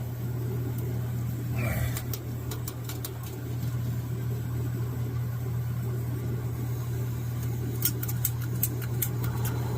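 Steady roar and hiss of Campingaz butane appliances burning, with a quick run of sharp clicks near the end as the Super Baby 200 gas heater is lit.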